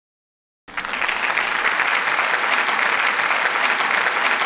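Applause: many hands clapping at a steady level, starting suddenly out of dead silence about a second in.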